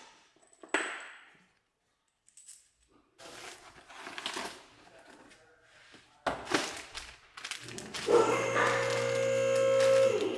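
Plastic wrapping crinkling and rustling as a new metal transmission oil pan is unwrapped, after a few short clicks of small parts at the start. Over the last two seconds a louder steady hum with several held tones swells and then stops.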